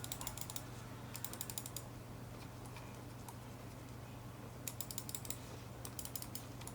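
Logitech MX Master mouse's left button clicked rapidly in short runs, four quick bursts of faint sharp clicks with pauses between them.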